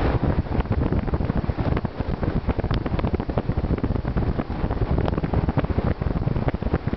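Wind buffeting the microphone of a moving vehicle, a loud, gusty rumble strongest in the low end, with the vehicle's road noise underneath.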